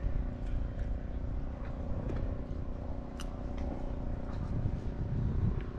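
Outdoor ambience: a steady low rumble with a distant engine-like hum, broken by a few faint clicks and one sharper tick about three seconds in.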